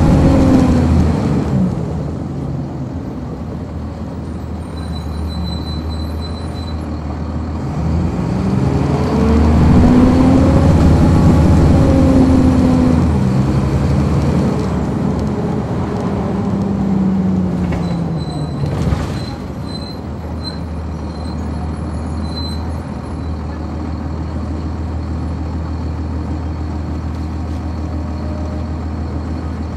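On-board sound of a 1999 Nova Bus RTS with a Cummins ISC inline-six diesel and ZF automatic transmission. The engine pitch rises as the bus pulls away, holds, then falls as it slows. A short air-brake hiss comes near two-thirds of the way through, and the engine then idles steadily.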